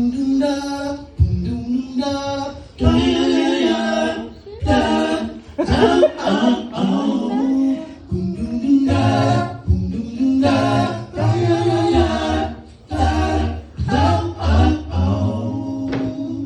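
Voices singing a soul-style warm-up a cappella in harmony, in phrases with short breaks; a low part comes in about nine seconds in.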